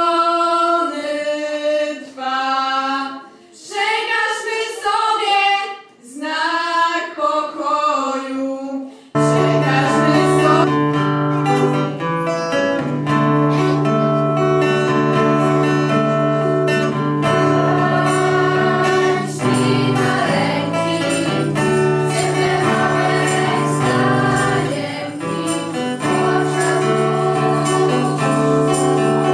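A small group of girls sings a Christmas carol a cappella in harmony, phrase by phrase, until an abrupt change about nine seconds in. From there a larger girls' choir sings a carol to acoustic guitar accompaniment.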